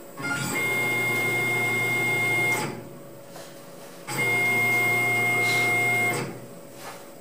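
A personal CNC mill's axis drives whine through two rapid moves, each about two seconds long, with a steady high whine that starts and stops abruptly. Under them is the machine's quieter steady hum.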